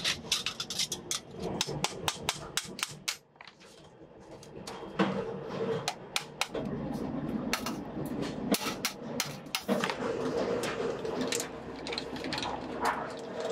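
Hammer blows on galvanized sheet steel, in quick strings of sharp ringing strikes, as a bucket body is shaped over a steel stake. Over the second half, the sheet rattles and scrapes as its edge is worked through a hand-cranked rolling machine.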